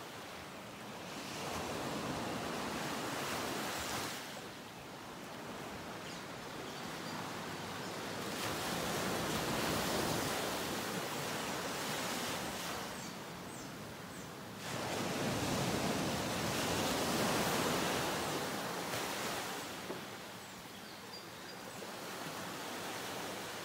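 Ocean surf washing onto the shore, a steady rush of water that swells and falls in long surges every few seconds.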